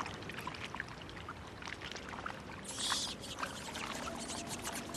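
Hot-spring water trickling and splashing steadily, with small drips throughout and a brief louder splash about three seconds in.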